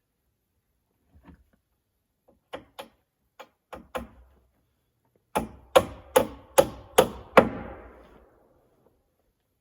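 Hammer blows on wood: a few light taps, then six hard, evenly spaced strikes about every 0.4 s, the last one ringing on briefly.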